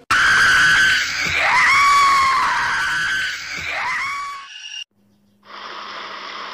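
A loud, shrill scream sound effect that starts abruptly, its pitch dipping sharply twice, and cuts off suddenly after about four and a half seconds. After a short gap a steady rushing noise with a low hum beneath it begins.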